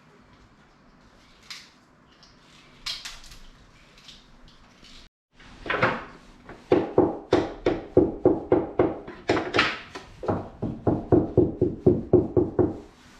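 A few light clicks and knocks, then, after a short break, a hand tool worked on wood or a door in quick regular strokes, about three a second, for several seconds.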